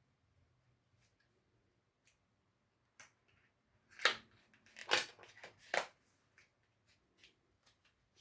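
A cardboard product box being forced open by hand: a few light clicks, then a burst of sharp cracking and ripping packaging sounds about halfway through, then a few more small clicks.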